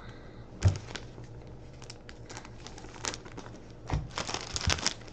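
Hockey cards and their plastic wrappers and sleeves being handled on a table: scattered crinkles, light taps and rustles, busiest about four seconds in, over a faint steady hum.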